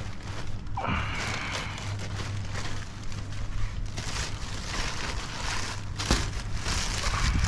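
Clear plastic sheeting crinkling and rustling as hands pull it over a stack of pavers and tuck it in.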